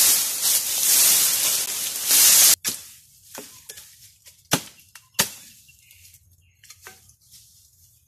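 Loud rustling and crackling of dry brush being pulled and cut, cutting off abruptly about two and a half seconds in. Then several sharp chopping strikes of a blade on wood, spread over the next few seconds.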